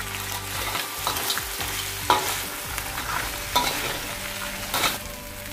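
Blue crabs stir-frying in a metal wok, sizzling steadily while a metal spatula tosses them and knocks and scrapes against the pan four or five times.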